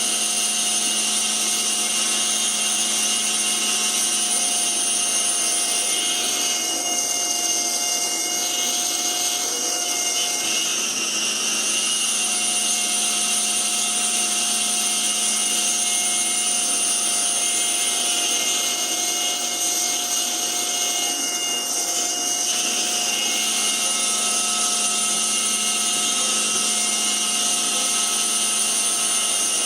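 A CNC mill's spindle running with a steady high whine while it cuts a small wooden dragon insert. The tone shifts slightly a few times as the cutter's load changes.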